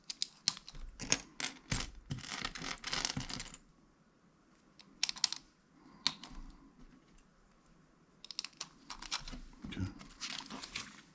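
Small plastic LEGO pieces clicking and rattling as they are handled and pressed together: dense runs of quick clicks for the first few seconds, a few single clicks in a quieter middle stretch, and another run of clicking near the end.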